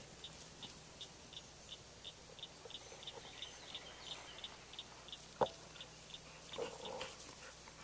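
Rural outdoor ambience with a high, short chirp repeating evenly about three times a second throughout, a single sharp click about five seconds in, and a brief lower sound near the end.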